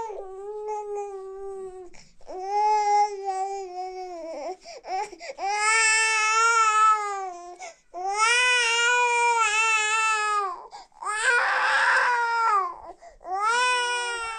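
An infant crying hard: a series of long wails, each a second or two long, broken by short catches of breath.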